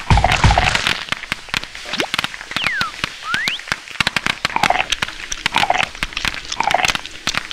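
Popcorn popping rapidly, a dense crackle of many sharp pops in quick succession, with a falling then a rising whistle about three seconds in.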